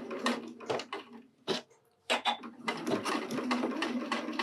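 Janome Horizon Memory Craft 9400QCP computerized sewing machine stitching through heavy denim while backstitching to secure the seam: rapid needle clicks over the motor's hum, a brief stop about a second and a half in, then a longer, steadier run of stitches.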